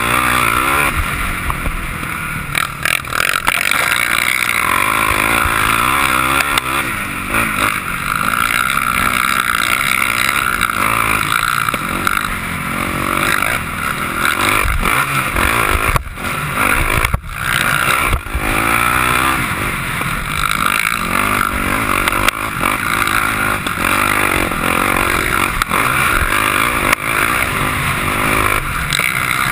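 Sport quad's engine running hard under throttle on a dirt motocross track, rising and falling as the rider works the throttle, heard through a camera mounted on the machine along with wind rush. The sound drops out briefly twice about halfway through.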